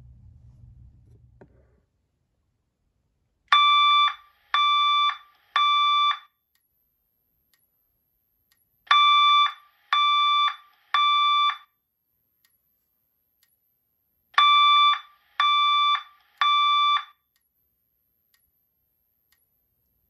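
Fire alarm speaker sounding the temporal-three evacuation tone, three steady beeps, a pause, and three more, three groups in all, signalling a fire evacuation. A faint high-pitched strobe whine ticks about once a second under it.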